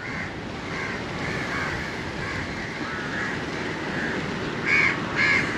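A chorus of crows cawing over steady street background noise, with one closer crow cawing loudly twice near the end.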